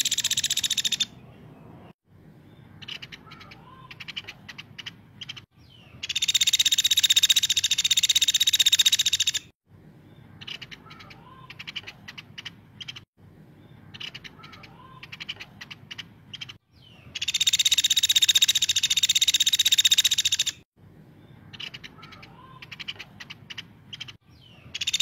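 Caladi woodpecker calls: runs of sharp ticking notes, alternating twice with a loud dry rattling trill lasting three to four seconds. The segments cut off abruptly, as in a looped recording.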